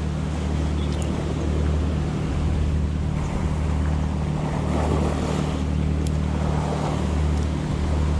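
Surf washing against a rocky shore, with wind on the microphone adding a steady low rumble.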